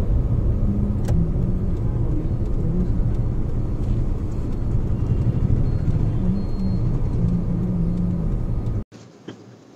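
Heavy road traffic: car engines running over a steady low road rumble. The sound cuts off suddenly near the end.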